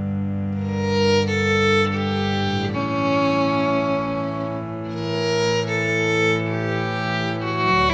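Background music: a slow melody over long held low notes, the low notes changing about three seconds in and again near the end.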